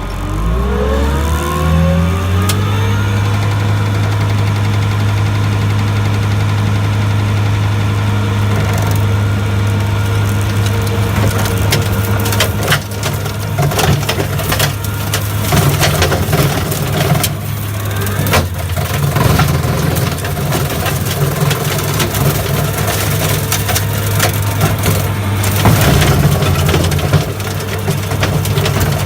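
New Holland L170 skid steer's diesel engine running hard, with a whine that rises over the first couple of seconds and then holds steady as the Loflin brush cutter comes up to speed. From about twelve seconds in, the cutter cracks and splinters through thick brush in repeated sharp snaps over the steady engine.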